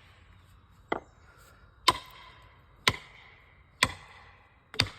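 Felling wedge being driven into the cut with heavy blows, five sharp strikes about a second apart, some with a short metallic ring.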